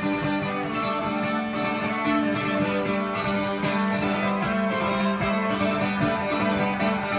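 Live instrumental passage on an acoustic guitar and a small round-bodied plucked string instrument. The guitar is strummed while the two play together steadily, with no vocals.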